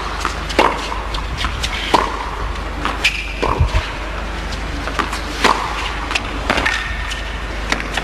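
Tennis ball bounced on a hard court before a serve: a string of short sharp knocks at irregular spacing, over a steady low electrical hum in the broadcast audio.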